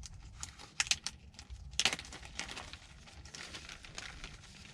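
Seed packets being handled, crinkling and rustling, with a few sharper crackles and clicks about a second in and again near two seconds.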